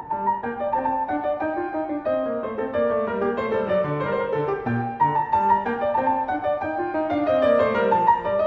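Piano playing the G minor opening section of a short keyboard piece in simple binary form: a melody over a steady line of even bass notes.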